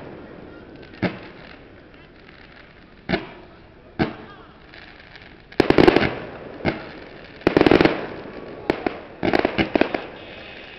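Aerial fireworks bursting: single sharp bangs about a second in and again around three and four seconds, then quicker volleys of bangs and crackling from about five and a half seconds on, each bang trailing off in a short echo.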